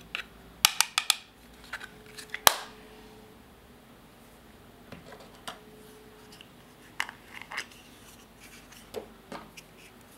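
Sharp clicks and cracks of plastic eyeshadow compacts as a metal pick pries and breaks the pressed powder out of them: a quick run of about four clicks about a second in, the loudest crack about two and a half seconds in, then scattered clicks.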